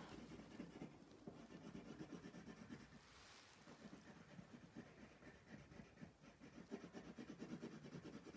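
Coloured pencil scratching faintly on paper in quick back-and-forth shading strokes, with a couple of brief pauses.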